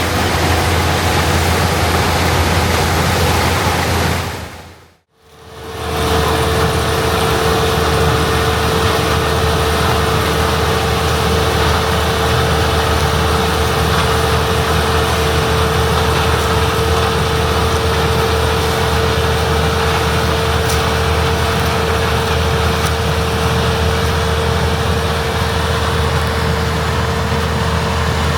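Heavy farm machinery engines running steadily at harvest. About five seconds in, the sound fades out briefly and comes back, and from then on a steady whine runs over the engine noise.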